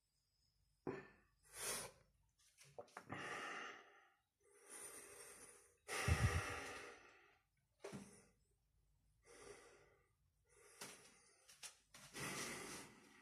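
A man breathing hard and deeply: about ten loud breaths, some short and sharp, some drawn out over a second or more, the strongest about six seconds in.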